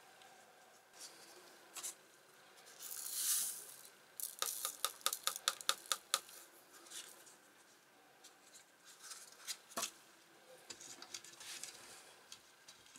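Wooden stirring stick clicking against the sides of a plastic tub as sodium hydroxide is stirred into water: a brief hiss of poured flakes, then a quick run of light clicks at about six a second, and a few scattered faint taps after that.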